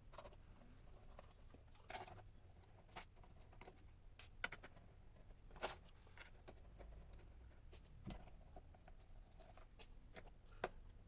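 Faint, scattered small clicks and taps of a screwdriver working the screws out of a laptop's plastic bottom cover, about a click every second or two.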